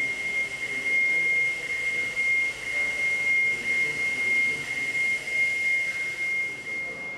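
A single steady high-pitched tone holding one pitch over a background hiss.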